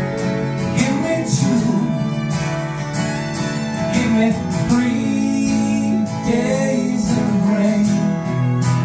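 Live acoustic trio: two acoustic guitars strummed, a fiddle bowed, and men's voices singing together.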